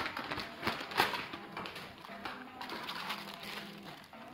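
Thin plastic packaging bag rustling and crinkling as a plastic feeder bowl is pulled out of it, with a couple of sharper crackles in the first second or so, then softer handling noise.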